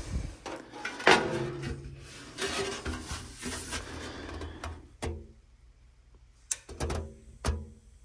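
Sheet-metal furnace access door being handled and turned over, scraping and clattering, loudest about a second in, followed by a few sharp knocks near the end.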